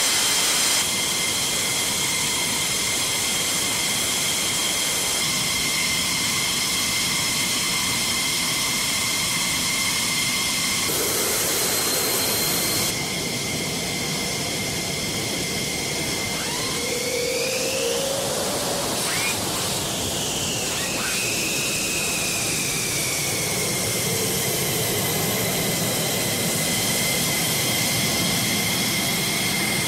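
F-15E Strike Eagle twin jet engines running on the ramp: a steady high turbine whine over a rushing roar. A little past halfway the whine rises and then falls in pitch.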